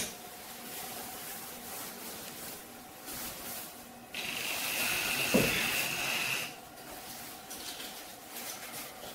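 A sharp knock at the start, then about four seconds in an aerosol spray hisses steadily for about two and a half seconds and cuts off, with a soft thump in the middle.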